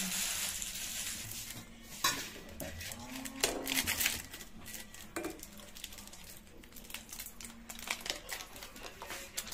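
Steel spoon stirring instant noodles in a steel pot of boiling water on a gas stove, with scattered light clinks and scrapes against the pot.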